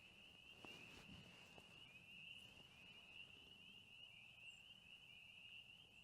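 A faint chorus of spring peepers: many small frogs calling at once, short high rising peeps overlapping into a steady, shrill ringing. It is the sign that spring is near.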